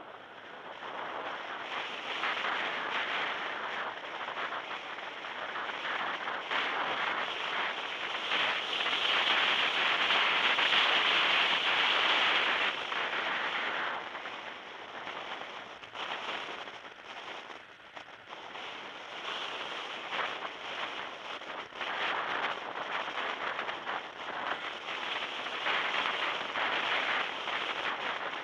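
Crackling wind and road noise on the microphone of a camera in a moving car, swelling to its loudest about a third of the way in, then easing and rising again.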